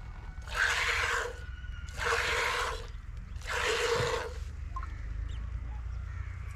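Milk squirting into a metal pail as a cow is milked by hand: three spurts about a second and a half apart, stopping about four and a half seconds in.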